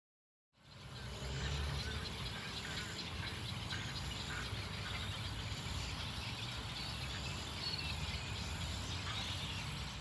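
Wetland ambience fading in about half a second in: a steady high-pitched insect chorus with many small scattered chirps, over a low rumble.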